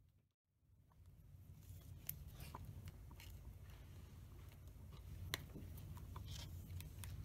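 Faint handling noise of a rubber cable grommet being worked and pulled back along a gauge cable by hand: scattered small clicks and creaks of rubber and plastic, two sharper clicks about two seconds and five seconds in, over a low steady hum.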